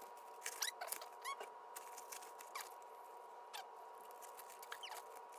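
Short squeaks and scratchy clicks of padded fabric divider panels being pushed and fitted into a disc golf cart's compartment, over a faint steady hum.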